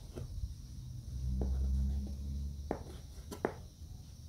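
A kitchen knife slicing sheep liver on a plastic cutting board, the blade clicking against the board about five times, two of them close together near the end, over a low rumble.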